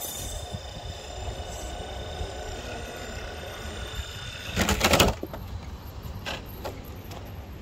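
Electric motor of an RC rock crawler whining steadily as the truck drives off a boulder. A little past the middle comes a loud, brief rustling burst, the loudest sound, followed by a couple of fainter ones.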